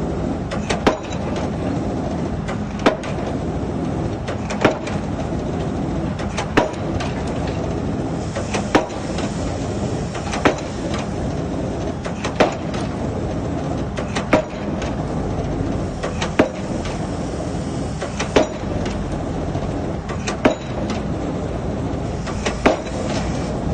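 Pile driver hammer striking a foundation pile, a sharp bang about every two seconds, about a dozen blows, over the steady run of the rig's engine.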